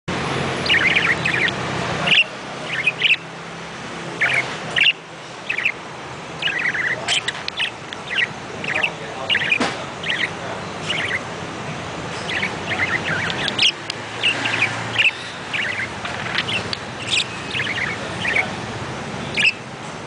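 Budgerigars chattering: a continuous stream of short chirps and warbles, many in quick succession, over a steady low hum.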